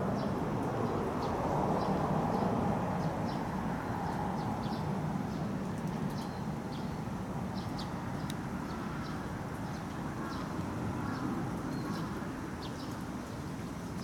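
Outdoor pond-side ambience: a steady background rush, with short high bird chirps scattered throughout.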